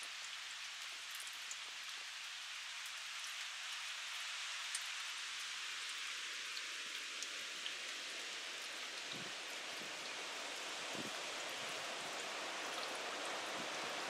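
Steady rain falling with an even hiss. From about nine seconds in, a few short low gusts of wind come through.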